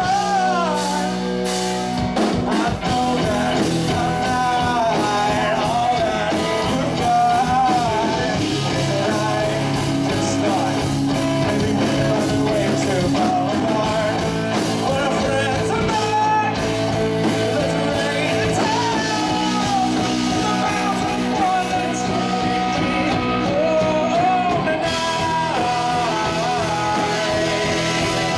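Live band playing a song with a lead singer, backed by guitar and drums at a steady beat.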